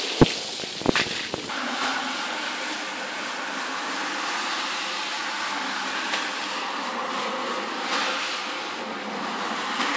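Rotary scrubbing machine running steadily as its brush scrubs a foamy, wet shag carpet, with two sharp clicks in the first second.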